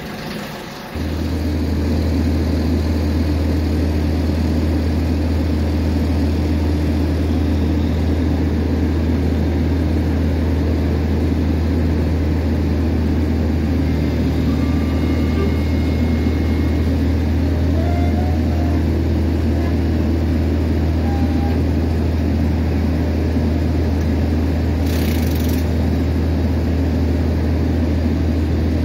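Boom truck's engine and hydraulics running steadily at a raised speed to power the crane as it lowers a locomotive resistor grid. The sound steps up suddenly about a second in, then holds with a steady low hum.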